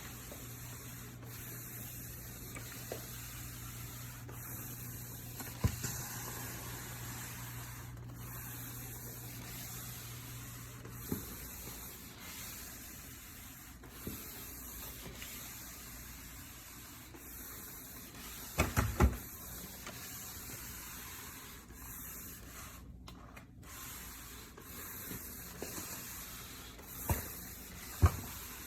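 Shark VacMop Pro cordless vacuum mop running as it is pushed back and forth over a hard floor: a steady whirring hiss that swells and dips with each stroke. A few sharp knocks come through, and a short rattle of clicks about two-thirds of the way in.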